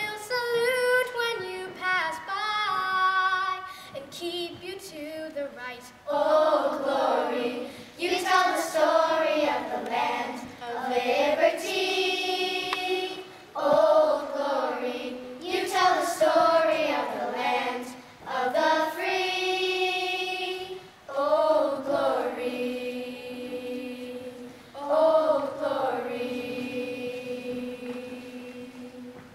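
A group of young girls singing a song together, in phrases with long held notes, closing on one long held note near the end.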